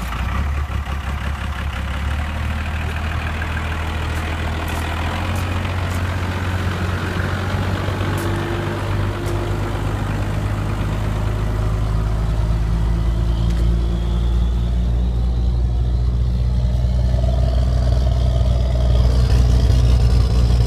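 1994 Dodge Ram's 5.9-litre Cummins 12-valve inline-six diesel idling just after starting, a steady low rumble with diesel clatter over it. It grows louder near the end as the microphone goes under the truck.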